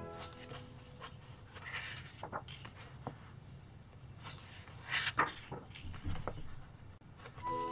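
Paper pages of a large paperback colouring book being turned and handled by hand: a few short rustles, the loudest about five seconds in. Background music stops just after the start and comes back near the end.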